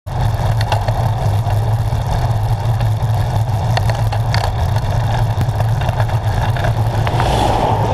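Wind buffeting the microphone of a bike-mounted camera while riding along a road: a steady, loud low rumble with road noise, and a hiss that builds near the end.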